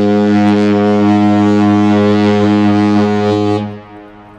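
Horn of the Quantum-class cruise ship Spectrum of the Seas sounding one long, low blast at a steady pitch, which stops about three and a half seconds in.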